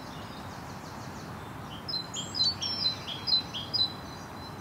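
A songbird singing a quick run of about a dozen high chirping notes, starting a little under two seconds in and lasting about two seconds, over a steady background hiss.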